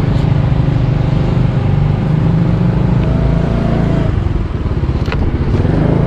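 Small motor scooter's engine running while riding along at a steady, low speed, a continuous low drone that eases briefly about four and a half seconds in.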